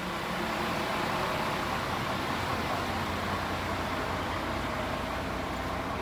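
Coach bus driving, with a steady mix of engine and road noise.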